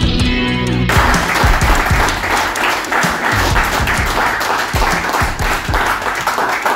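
Music that cuts off abruptly about a second in, replaced by a crowd applauding.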